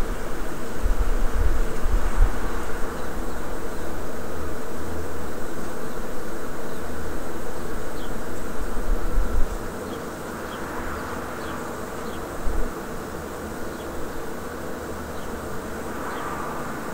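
Outdoor ambience: wind rumbling on the microphone, easing off a little under ten seconds in, over a steady hum, with a few faint high chirps.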